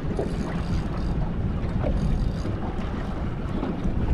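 Wind buffeting the microphone aboard a small boat at sea, a steady low rumble with water moving around the hull and a few faint knocks.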